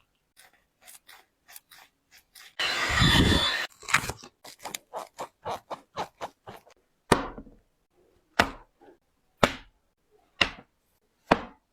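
A sneaker being cut apart with scissors or a blade: a quick run of short snips, a louder rasping cut about three seconds in that lasts about a second, then five sharp cuts about one a second.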